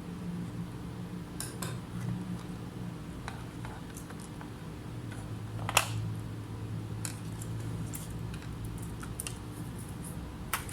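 Scattered light clicks and taps from small tools and parts being handled at a repair bench, with one sharper click near the middle, over a low steady hum.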